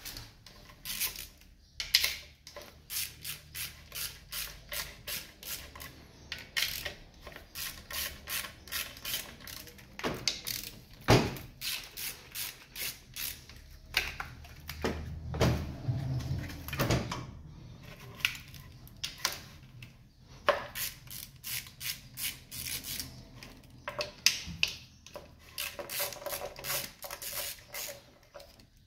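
Hand ratchet wrench clicking in runs of quick strokes, about three or four a second, with knocks and rattles of parts being handled as fittings are undone in a car's engine bay.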